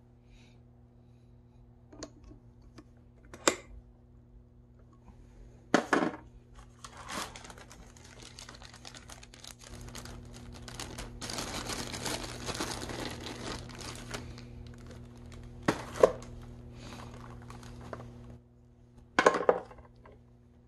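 Small clear plastic zip bag crinkling and rustling as it is handled and opened, loudest in the middle, with a few sharp clicks and knocks of small metal tools and parts against the bead-drilling machine. A faint steady hum runs underneath.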